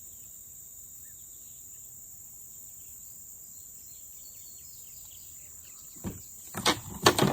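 Insects trilling steadily at a high pitch, with a few faint chirps. About six seconds in, a cluster of loud knocks and rustles starts, the loudest just after seven seconds.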